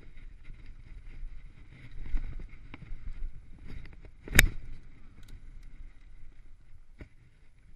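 Mountain bike rolling fast down a dirt trail: tyre rumble over the ground with the frame and parts rattling over bumps, and one sharp knock about four seconds in, the loudest sound.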